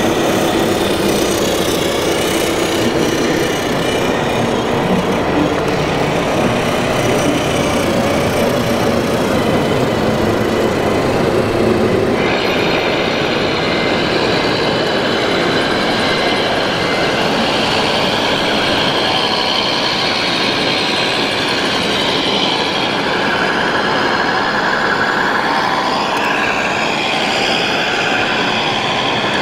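Radio-controlled 1:14 scale model trucks running, a steady mechanical vehicle noise over the background noise of a large hall. About twelve seconds in the sound changes, and steady whining tones come in.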